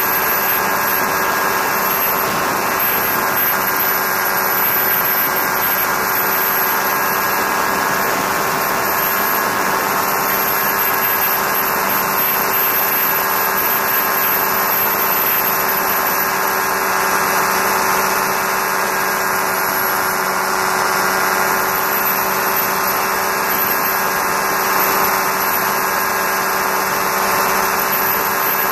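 Challenger II ultralight's engine and propeller running steadily in cruise, an even drone with wind rushing over the wing-mounted camera.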